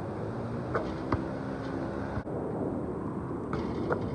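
A basketball bouncing on an asphalt court: a few short thuds, two about a second in and two more near the end, over a steady background rumble.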